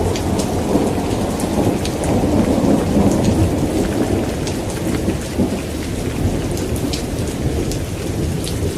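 Steady heavy rain with a continuous deep rumble and scattered ticks of individual drops.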